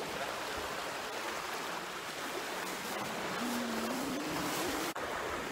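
Small sea waves washing and splashing against the rocks of a breakwater, a steady rushing wash.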